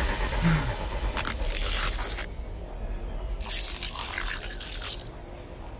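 A sneaker sole crushing a snail on tarmac: two crunching, squelching bursts as the shell breaks, one about a second in and a longer one from about three and a half seconds in.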